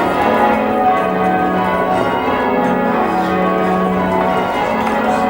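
Church tower bells being change-rung, the strokes following one another so closely that the bell tones overlap and hang on without a break.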